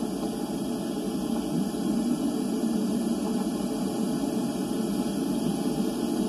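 Steady hiss and low rumble of an ocean underwater recording played back, with no distinct knocks standing out.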